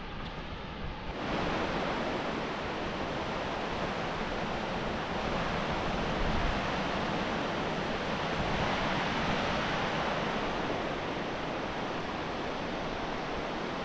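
Ocean surf rushing steadily onto a beach, a continuous hiss of breaking waves that grows louder about a second in and swells gently a couple of times.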